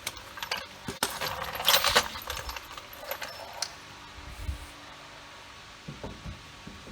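Loose metal parts and tools clinking and rattling as they are handled, in short clusters of sharp clicks with the loudest group about two seconds in, then a few soft low knocks.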